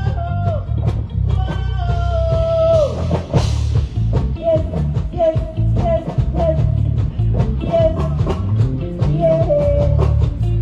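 A live band playing: drum kit keeping a steady beat over a heavy bass line, with a high melodic line of held notes on top and a cymbal crash about three seconds in.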